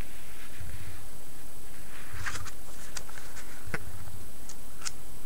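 Pages of a thick paperback catalog being handled and turned: a few short paper rustles and crisp clicks, mostly between about two and five seconds in, with a few soft bumps.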